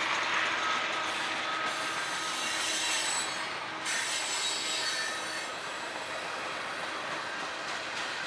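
Freight cars rolling past close by: a loud, steady rush of wheels on rail, with thin high-pitched wheel squeal over it for the first five seconds or so.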